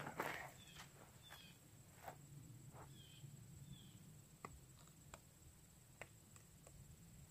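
Faint footsteps on dry, grassy dirt and a shuffle as a man drops to one knee, the loudest just at the start, followed by scattered light clicks and rustles of a rifle and clothing being handled.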